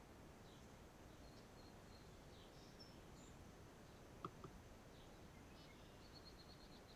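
Faint outdoor ambience with scattered small bird chirps and a short, rapid trill near the end. Two quick, faint clicks come a little past halfway.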